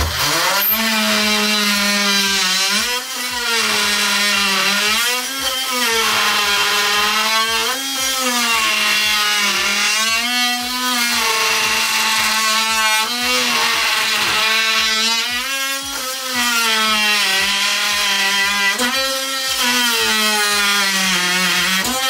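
Ryobi P343B 18V brushed cordless oscillating multi-tool starting up and cutting into a wooden post with a steady buzzing hum. Its pitch sags under load and rises again each time the blade eases off, every two to three seconds.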